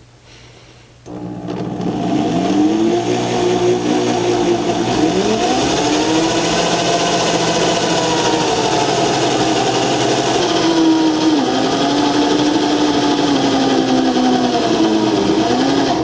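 Corded electric drill starting about a second in and running at slow speed, its motor pitch sagging and recovering as a step bit is pressed hard into thick steel plate, then stopping at the end. The bit is dull, so the cut goes slowly.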